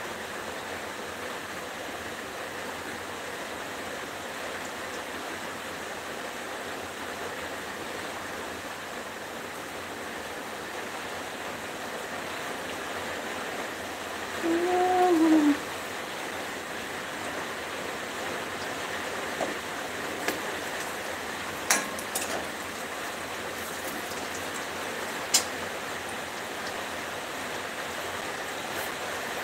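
Battered cauliflower pieces sizzling steadily in hot oil in a wok. About halfway through comes a brief pitched sound lasting about a second, the loudest moment. Later there are a few sharp clicks of a steel ladle against the wok.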